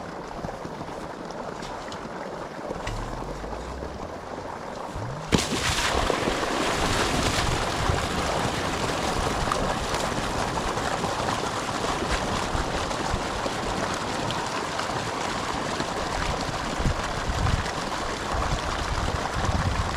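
Irrigation water rushing and splashing out of a pipe into a sandy field. A quieter wash of water suddenly becomes a loud, steady rush about five seconds in, as the pipe is started and the flow begins.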